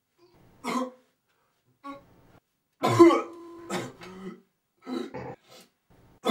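A person coughing and clearing their throat in a series of short, harsh bursts, the loudest about three seconds in.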